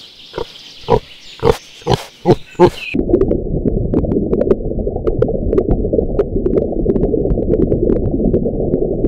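A pig grunting as it roots and feeds, about two short grunts a second. About three seconds in, the sound switches suddenly to underwater ambience: a steady low rushing rumble with scattered sharp clicks.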